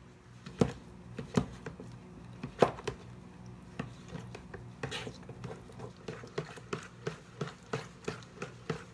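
A spoon stirring condensed cream of mushroom soup, lemon juice and milk together in a bowl, tapping and scraping against the bowl: scattered taps at first, then steady taps a few times a second from about halfway.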